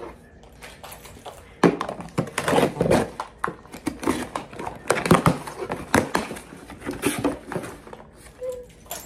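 Packaging being handled and opened by hand: a busy run of rustles, crinkles and small knocks, starting a couple of seconds in.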